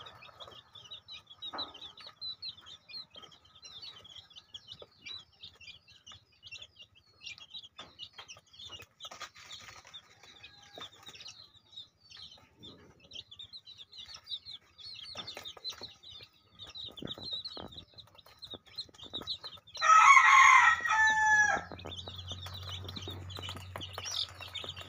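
Week-old native chicks peeping without pause, a dense run of short high cheeps. About twenty seconds in, a rooster crows loudly for a second or two.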